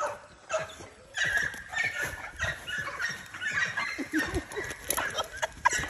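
Dogs calling in many short, high-pitched whines and yips, over scattered clicks and rustling.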